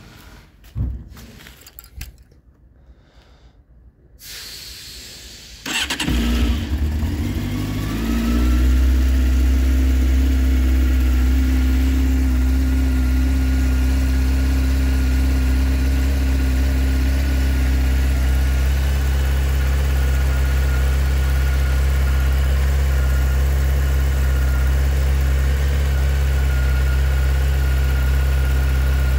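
Honda CBF600N's inline-four engine being started. After a few faint clicks and a short whir, the starter cranks briefly about six seconds in and the engine catches. It settles within a couple of seconds into a steady idle.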